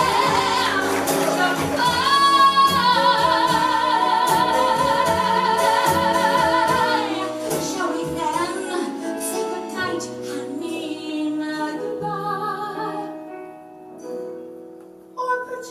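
Female cabaret singer belting a long held note with wide vibrato over a small jazz band of piano, upright bass, guitar and drums with cymbal strokes. After about seven seconds the voice stops and the band plays on more softly, fading to near quiet. The instruments pick up again near the end.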